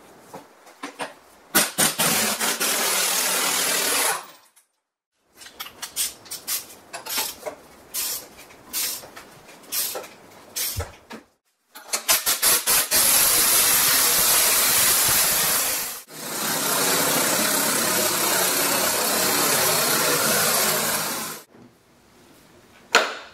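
Air impact wrench rattling, first in short bursts on the nut of the T56 transmission's output flange, then in two long runs driving the centre screw of a three-jaw puller set on that flange.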